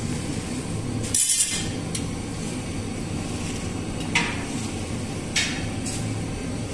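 Steady low machine hum of a working bakery, with four short sharp noises scattered through as dough rounds are pressed and dimpled by hand.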